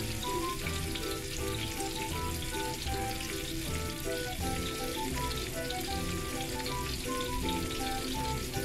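Cornstarch-coated shrimp deep-frying in a pot of hot oil: a steady bubbling sizzle with fine crackles. Background music with a simple melody and a pulsing bass plays over it.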